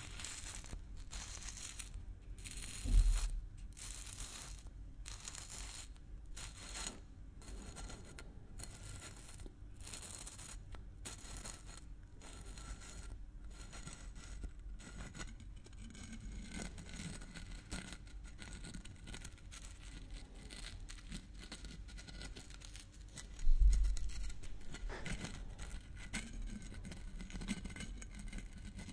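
Screw cap of a plastic bottle twisted back and forth on its threads close to the microphone: a steady run of dry, scratchy clicks and scrapes. Two heavy low thumps break in, a few seconds in and again toward the end.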